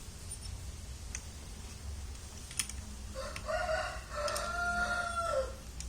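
A rooster crowing once, starting about three seconds in: a short opening note, then a long held note that drops at the end. Beneath it is a low steady hum.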